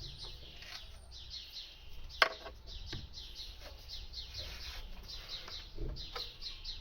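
A songbird singing throughout, quick runs of short high chirps, each falling in pitch, several a second. One sharp click about two seconds in is the loudest sound.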